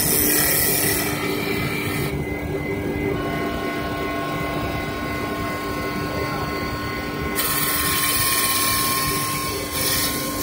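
CNC wood lathe running, a wooden baluster spinning against its bristle sanding brushes: a steady machine hum with a high hiss that drops away about two seconds in and comes back after about seven seconds.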